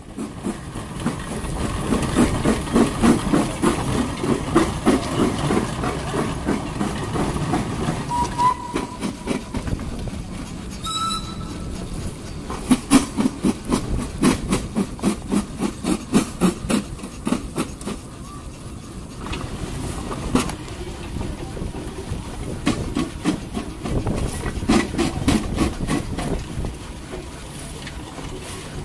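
Steam engine running, a regular beat of exhaust chuffs over a steady steam hiss, with a short whistle toot near the middle.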